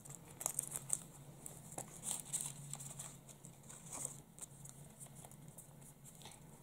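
Small paper sticker packet being handled and unfolded: quick crisp paper rustles and crinkles, busiest in the first four seconds, then quieter.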